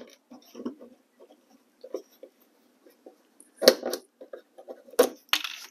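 Old plastic fender-liner push clip being pried out with a pick tool and small flathead: small clicks and rustling, then two sharp snaps about 3.5 and 5 seconds in, the second followed by a short scrape. The snaps are the brittle clip giving way as its tabs bust out.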